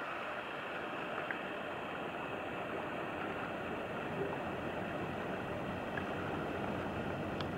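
Steady wash of river water along the bank, an even rushing without any clear engine note.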